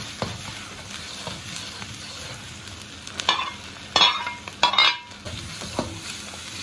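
Soybean paste and scrambled egg sizzling in oil in a steel wok, stirred with a metal spatula that scrapes the pan. A few louder scrapes and clatters a little past the middle come as chopped green chilies are scraped in from a plate and stirred through.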